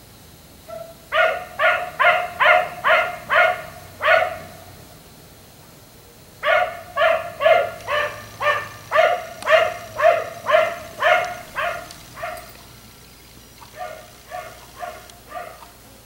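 Black Labrador retriever barking over and over at about two barks a second. There is a run of about seven barks, a short pause, a longer run of about a dozen, then a few fainter barks near the end.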